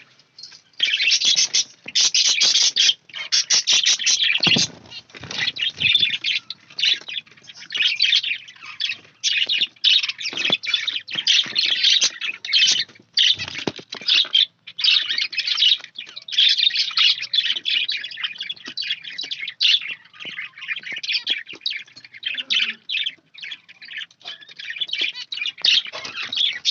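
A cageful of pet finches and budgerigars chirping and chattering busily, a dense run of quick high calls with only brief gaps.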